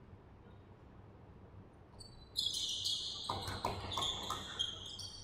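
Sneakers squeaking on a hardwood gym floor, many short high squeals, mixed with a basketball bouncing on the boards. It starts about two seconds in, after a quiet stretch.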